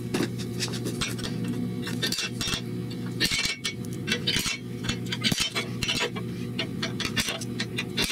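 Automatic center punch snapping against a steel plate, a sharp metallic click each time it is pressed down to mark a hole centre through a paper template. The clicks come at irregular intervals, starting about two seconds in.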